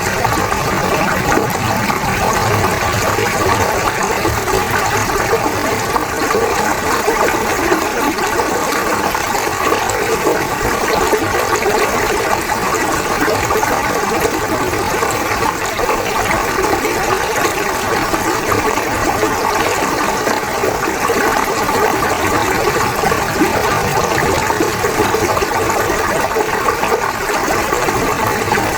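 Fast-flowing river water rushing steadily, a loud continuous churning without breaks.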